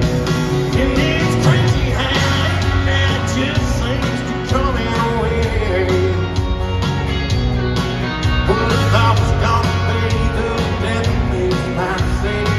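Live country band playing loudly through an arena PA, with electric guitars, bass and drums keeping a steady beat.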